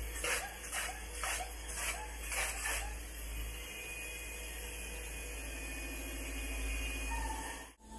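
Polyurethane spray-foam gun hissing in a quick run of short spurts, about two a second, over a steady hum. After about three seconds only the hum remains.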